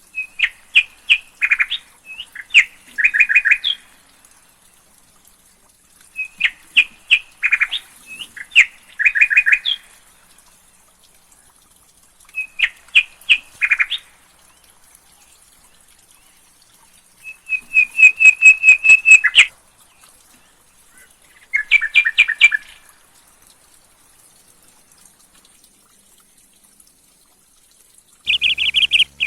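A songbird singing in short phrases of quick, rapid chirps, each phrase lasting one to three seconds with pauses of a few seconds between. Near the end a denser, continuous chirping begins.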